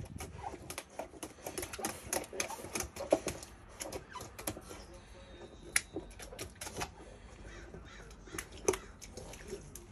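Newfoundland puppy lapping and splashing water from a steel bowl in a silicone holder: a quick irregular run of wet clicks and slaps, with a few sharper knocks of the bowl.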